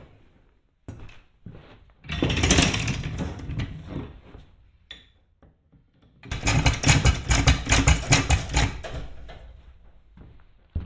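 Metal tools and parts clattering and rattling during hand work on a golf cart's front wheel hub, in two loud bursts, the second a fast run of repeated clanks lasting a few seconds.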